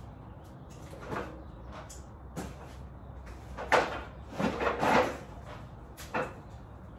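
Knocks and clatters of a golf cart's charging plug and cord being pulled out and handled, a few single knocks then a louder cluster of rattling near the middle.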